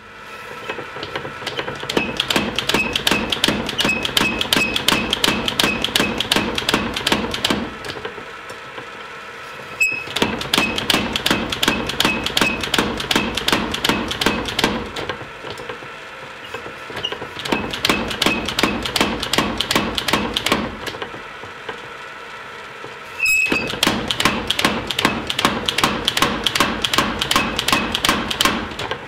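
Power hammer ram striking red-hot steel on the die in rapid, even blows, several a second, drawing out the flat end of a bar. The blows come in four runs with short pauses between, each later run starting with a sharp clang.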